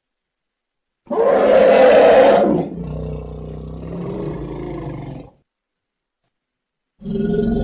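Woolly mammoth sound effect: a loud roaring call about a second in, trailing off into a quieter, lower pitched rumble, then cutting off. A new sound starts near the end.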